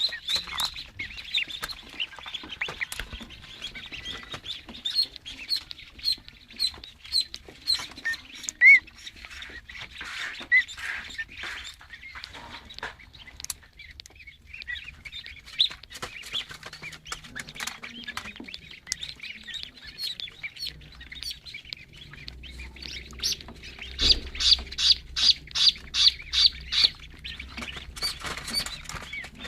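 Newly hatched poultry chicks peeping: short, high, repeated peeps, with a louder, quicker run of about three a second near the end.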